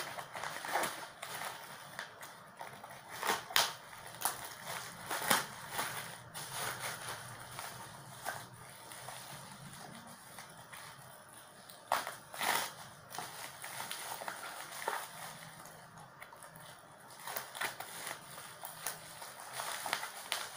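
Plastic packaging and bubble wrap crinkling and rustling as a parcel is cut open and unwrapped by hand, with irregular sharp crackles.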